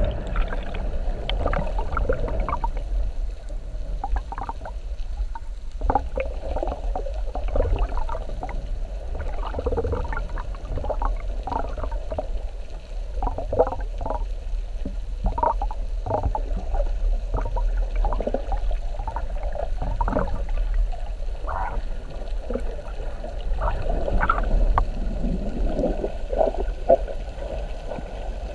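Muffled underwater sound from a submerged camera: a constant low rumble of moving water with many irregular short water sounds.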